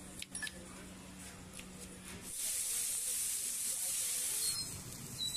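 Sliced ivy gourds sizzling on a hot flat iron griddle as they are stirred, a loud hiss of frying and steam that comes in about two seconds in. A couple of knife chops on a wooden board come first.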